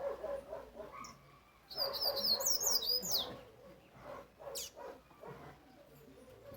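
Coleiro (double-collared seedeater) singing: a quick burst of high, sliding chirps about two seconds in that lasts just over a second, then a single high call about a second later.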